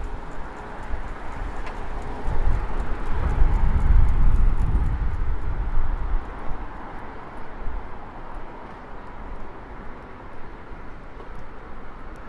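Street traffic on a wide city avenue: a steady hum of cars and tyres, with one vehicle passing close and loud from about two to six seconds in.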